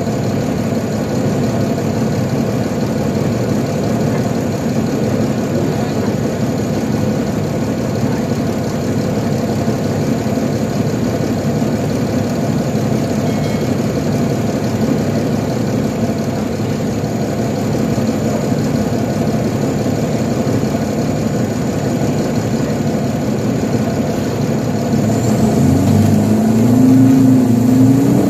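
Nova Bus LFS articulated city bus heard from inside the passenger cabin: the engine runs steadily under road and cabin noise. Near the end it gets louder and the engine note climbs, dips briefly and climbs again.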